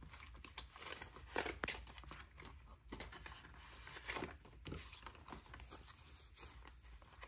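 Paper banknotes rustling as they are handled and counted, with crinkling from a cash envelope in a ring binder, in short, irregular, soft rustles.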